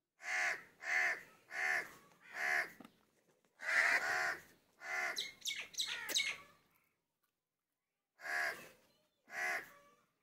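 A crow cawing repeatedly: four harsh caws in quick succession, then a longer caw, a ragged run of several more, and two final caws near the end.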